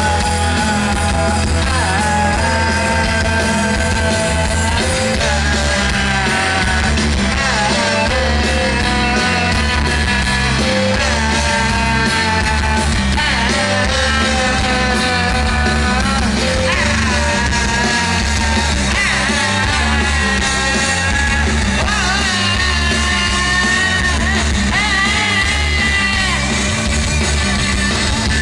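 Rock band playing live, recorded from the audience: electric guitars, bass and drums with a steady beat under a male lead vocal.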